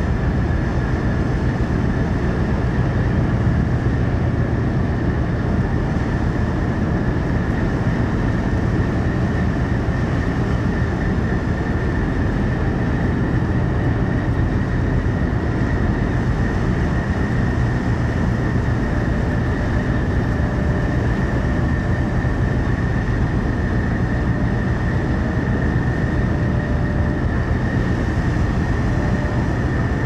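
Ship engines and machinery running in a steady low rumble, heard from the ferry's open deck with a harbour tug's diesels working hard alongside. A constant high-pitched whine runs over the rumble.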